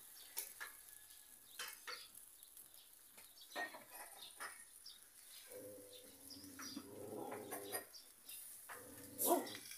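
Faint bird calls, with a few light clicks and a louder short sound near the end.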